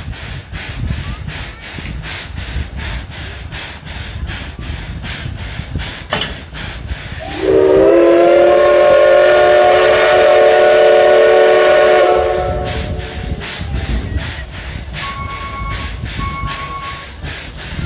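Japanese National Railways C11 207 tank locomotive's steam whistle blown in one long blast of about four seconds, a deep chord of several tones that rises slightly as it opens. Under it runs the standing engine's steady steam hiss with a regular pulsing, and two short beeps sound near the end.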